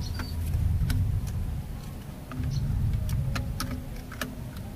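Light, irregular clicks and taps of plastic and metal laptop parts as a motherboard is handled and pressed into an opened laptop chassis, about eight in all, over a steady low rumble.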